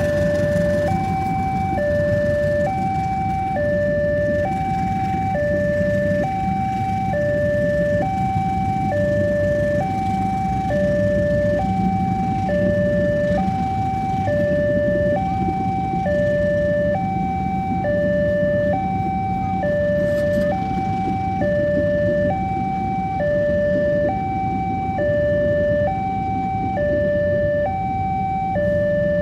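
Railway level-crossing warning alarm sounding a steady two-tone ding-dong that alternates between a lower and a higher pitch, each tone lasting a little under a second. A passing passenger train rumbles along the rails underneath it.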